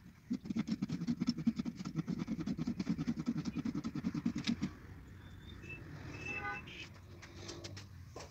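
A small engine running with a fast, even putter, which stops abruptly after about four and a half seconds, leaving quieter background noise with a few brief higher tones.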